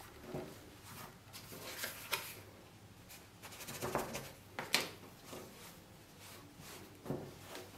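Hands pressing and stretching soft bread dough on a floured wooden board, with rubbing and handling sounds and a few short knocks, the sharpest about five seconds in, as a dough scraper cuts slits into the dough against the board.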